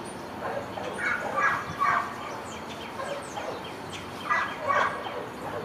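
Birds chirping and calling, with two louder bursts of calls: one about a second in, the other about four seconds in.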